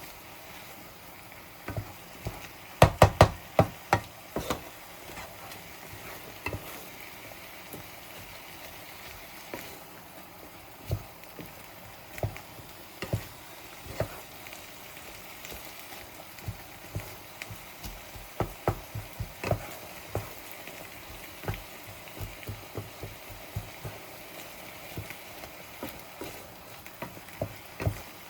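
Minced beef and chopped onion sizzling in a frying pan, with a steady hiss. A utensil stirs and knocks against the pan throughout, loudest in a quick run of knocks about three seconds in.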